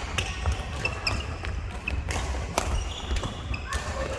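Badminton rally in a hall: rackets striking the shuttlecock with sharp cracks, two of them about half a second apart near the middle, between short high squeaks of court shoes on the floor, over a low steady hum.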